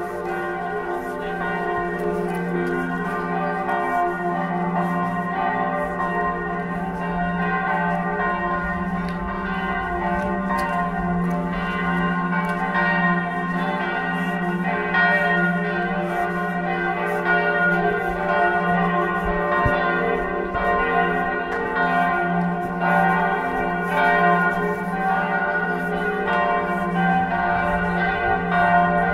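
Church bells pealing, a continuous ringing of overlapping tones that grows slightly louder toward the end.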